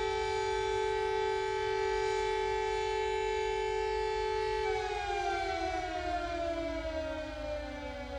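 Outdoor warning siren (civil defense siren) holding a steady pitch, then winding down, its pitch falling steadily from a little past halfway.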